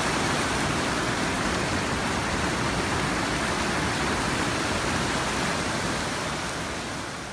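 Whitewater creek cascading over boulders below a waterfall: a steady rushing of water that fades out near the end.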